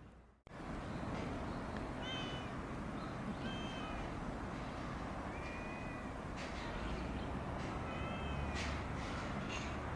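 A cat meowing: four short meows spaced a second or two apart, over steady background noise.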